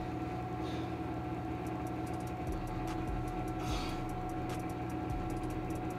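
Steady machine hum made of several fixed tones, with a couple of brief soft rustles over it.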